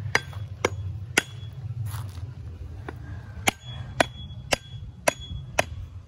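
Hammer blows driving a wooden stake into soil: eight sharp strikes about half a second apart, three, then after a pause of about two seconds five more. Several leave a brief metallic ring.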